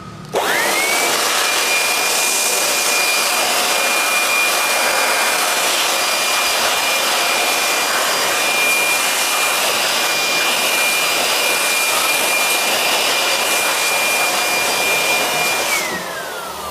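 Handheld electric air blower switched on, its motor whine rising within a second to a steady high pitch over a loud rush of air as it blows dust out of the amplifier's chassis. Near the end it is switched off and the whine falls away as the motor spins down.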